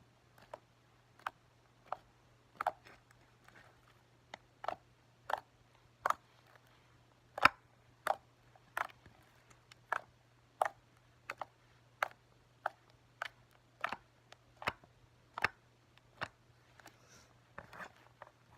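Slime being squeezed and pressed by hand, making a series of short clicking pops about once or twice a second.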